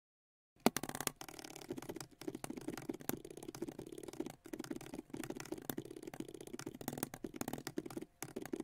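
Computer keyboard typing: rapid, irregular key clicks starting about half a second in and running on without a break.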